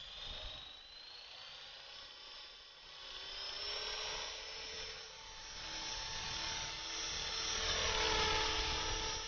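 Electric RC helicopter spooling up: a high motor and gear whine rises in pitch over the first seconds, then holds steady and grows louder as the rotor comes up to speed.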